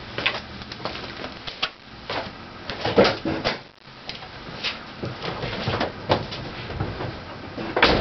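Scattered knocks, clunks and footsteps as a person moves about and climbs into a car raised on jack stands, with a louder clunk about three seconds in and another near the end. The electric motor is not yet running.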